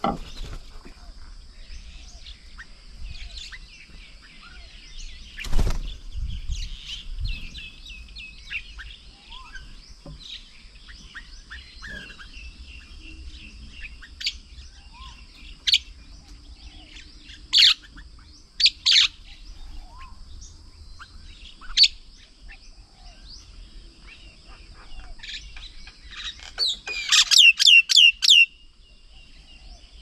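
Several birds chirping and calling, with scattered short chirps, a few loud sharp calls, and a fast run of loud repeated notes near the end. A steady high-pitched whine runs underneath, and a single knock comes about five seconds in.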